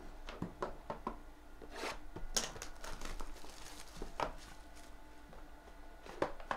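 Plastic shrink-wrap being torn and crinkled off a cardboard trading-card box, with taps and knocks as the box is handled. There is a louder burst of crinkling about two seconds in.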